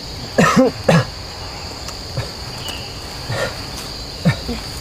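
Steady high-pitched insect chirring, with two short, loud sounds of sliding pitch about half a second and a second in, and a couple of softer ones near the end.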